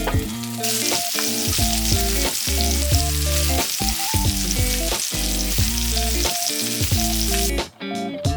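Meat sizzling loudly in a hot pan, a steady hissing that cuts off suddenly near the end, over background music with a bass line.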